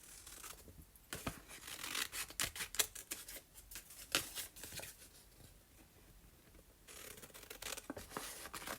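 Scissors cutting through a sheet of paper: a run of short, crisp snips, fewer in the last few seconds.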